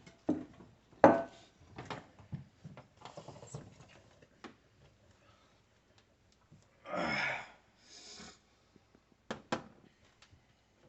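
Scattered clicks, knocks and rubbing of dishwasher parts being handled, the sharpest about a second in, with a brief rushing noise about seven seconds in.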